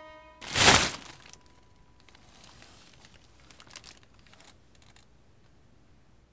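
A sudden loud burst of noise about half a second long, cutting off a held musical tone, followed by faint, scattered crinkling and rustling.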